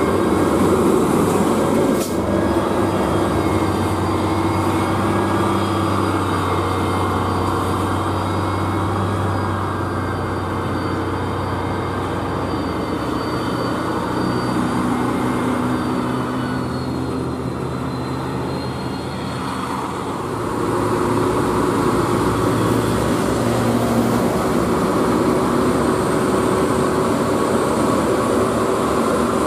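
UD Quester heavy diesel trucks loaded with steel reinforcing bar crawling slowly up a steep climb, engines running hard under load. The sound eases about two-thirds of the way through, then a louder engine note comes in as another truck draws near.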